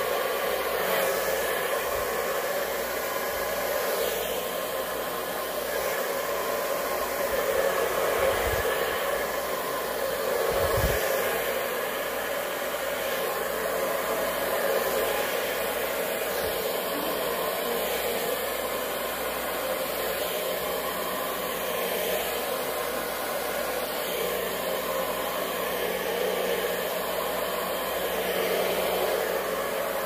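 Handheld hair dryer blowing steadily, used to push wet acrylic paint across the canvases in a Dutch pour.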